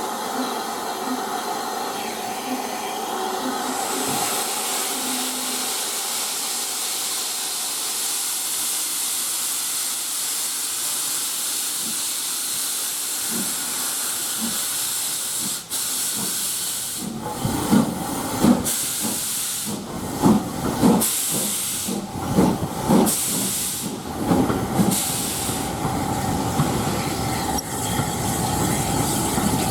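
SR Q Class steam locomotive 30541 hissing steam at a standstill. A little past halfway it starts to pull away, with slow, uneven exhaust chuffs about a second apart.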